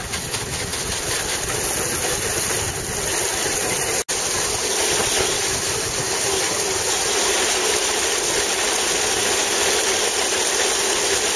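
Antique grain threshing machine running steadily under load as sheaves are fed in, its threshing cylinder and blower making a continuous mechanical rush. The sound drops out for an instant about four seconds in.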